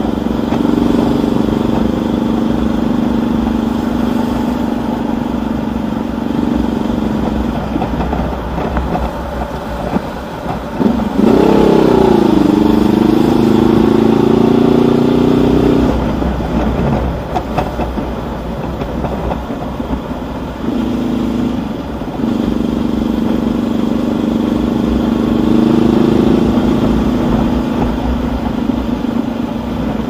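Honda CB500X's parallel-twin engine heard from the rider's seat while riding, with wind rumble on the microphone. About eleven seconds in it is opened up and pulls with a steady rise in pitch for several seconds, then eases off. It picks up and rises again a little after twenty seconds.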